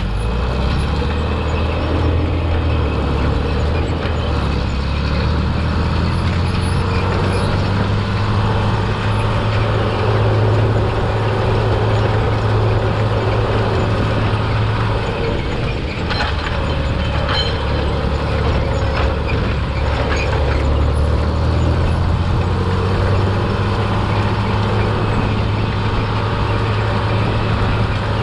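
Heavy diesel engine of harvest machinery running steadily with a deep hum. The engine note drops briefly about halfway through, and a few light rattles follow.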